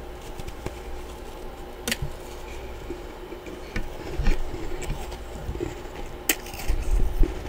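Freezer frost being crunched close to the microphone: irregular sharp crackles with a few louder snaps and some low thumps near the end.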